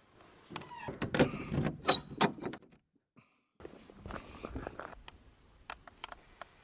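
Shelter door being opened and shut: a short rising creak, then a run of loud knocks and clatter. After a brief silent gap, softer scuffing and clicks of footsteps on a gravel trail.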